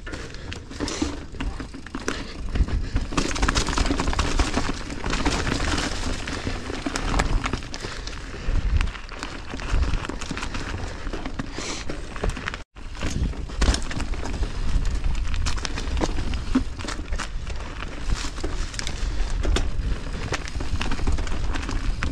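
Mountain bike riding fast down a rocky trail covered in dry leaves: tyres crunching over leaves and rock, the bike rattling with many small knocks, over a steady low rumble of wind on the helmet microphone. The sound cuts out for an instant a little past halfway.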